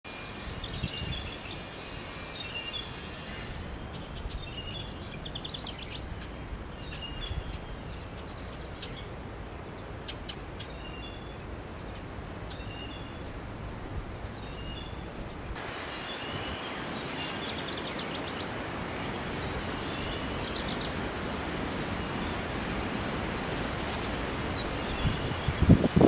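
Several songbirds singing, short chirped phrases and quick descending trills repeated over and over, over a steady background noise that grows louder about halfway through. A louder rustling rush comes just before the end.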